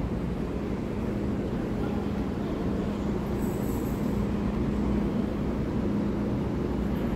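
Miami Metromover people-mover car running along its guideway, heard from inside the car: a steady rolling drone with a constant low hum.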